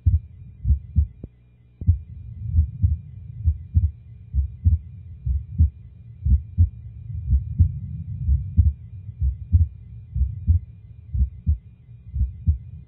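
Normal heart sounds: paired low thuds, the S1 and S2 'lub-dub' of each beat, repeating evenly a little under once a second.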